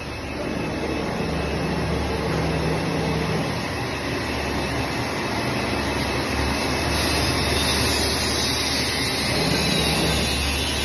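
Flatbed digital CNC cutting machine running: a steady noise over a low hum, with short steady tones coming and going as it works. The hiss grows brighter about seven seconds in.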